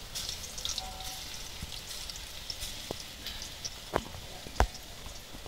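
Gandal-leaf and lentil fritters sizzling and crackling in hot oil in a wok, with three sharp knocks, the loudest about four and a half seconds in.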